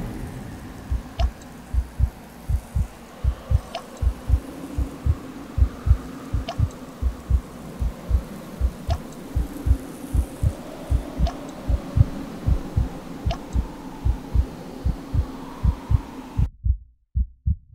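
Heartbeat sound effect: a steady run of paired low thumps over a faint low drone, with a faint sharp tick every couple of seconds. The beat drops out briefly near the end.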